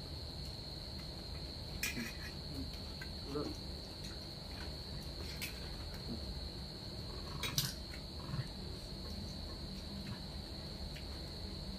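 Steady, high-pitched trill of an insect chirring without a break, with three sharp clinks of utensils on dishes, the loudest about seven and a half seconds in.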